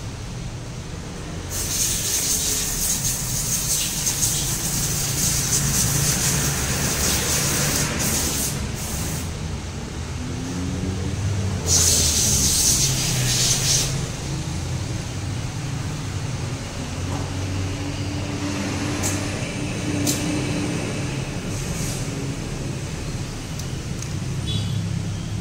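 Aerosol cleaner sprayed through its red extension straw in two long hisses: the first lasts about six seconds and the second, beginning about halfway through, about two. It is being used to wash combustion deposits off a Kawasaki KIPS exhaust-valve cover plate.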